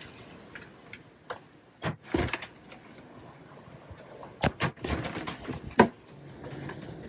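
Machete blade striking a freshly caught dorado (mahi-mahi) on a wooden cockpit grating: a series of sharp thumps, two about two seconds in, several more around four and a half to five seconds, the loudest near six seconds.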